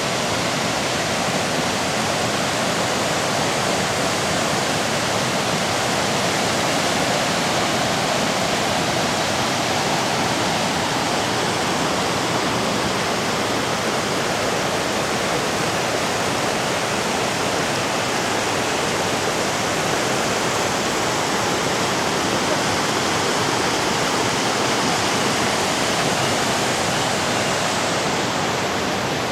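Waterfall on a river, a loud, steady rush of falling water.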